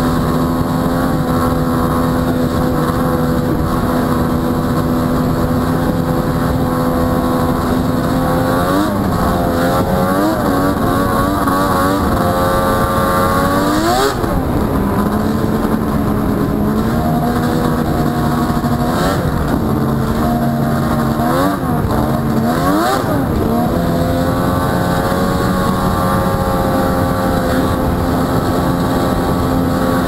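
1998 Arctic Cat Thundercat 1000's three-cylinder two-stroke engine running under way at a steady speed. Its pitch drops and climbs back a few times between about nine and fourteen seconds in and again around twenty seconds in, then holds steady.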